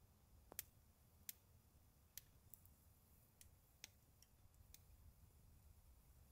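Faint crackling of firewood burning in a small wood grill: several sharp, irregularly spaced pops.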